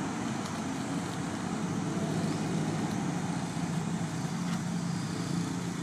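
Steady low background rumble at an even level, with no distinct events.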